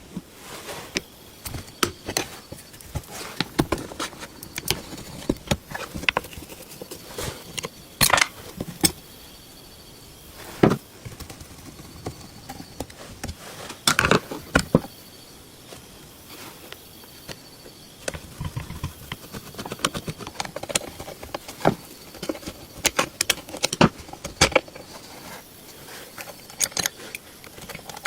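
Irregular metallic clicks, clinks and taps of small tools and metal sewing-machine parts being handled during restoration work, with a few louder knocks now and then.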